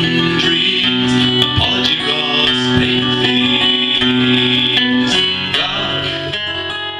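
Acoustic guitar strummed and picked in ringing chords, fading out near the end.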